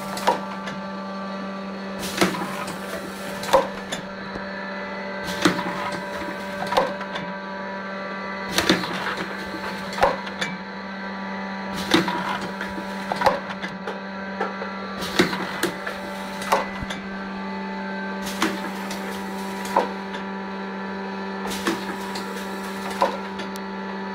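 Automatic pot filling machine running through its cycle: a steady hum with a short hiss of compressed air from the pneumatic cylinders about every three seconds, each followed by a sharp clack as the mechanism moves the pots.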